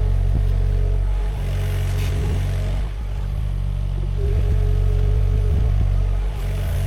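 Sany SY50U mini excavator's diesel engine running steadily while digging. The engine note rises twice under load, near the start and about four seconds in, each time with a whining tone, and a few light knocks come in between.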